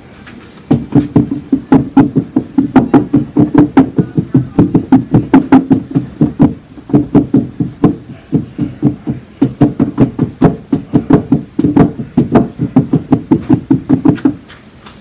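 Rapid strokes of a bowl scraper's edge knocking and scratching against a cold wax painting on a wooden cradled panel, about four to five sharp strikes a second with a couple of brief pauses, scoring thin lines into the wax.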